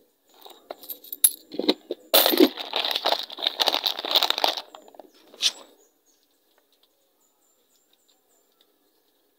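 Close handling noise: rustling and clattering with sharp clicks, loudest for about two and a half seconds in the middle, then it stops abruptly about six seconds in.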